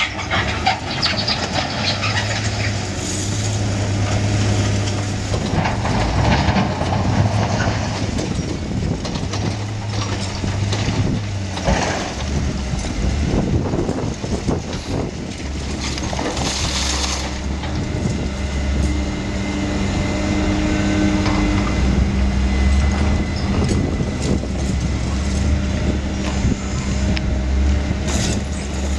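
Heavy diesel construction machines, a wheel loader and an excavator, running steadily, with scattered clatter and scraping of rubble and metal.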